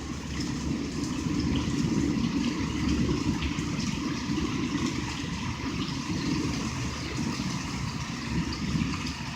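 Thunder rumbling low and long, swelling a second or two in and slowly easing off, over a steady hiss of falling rain and hail.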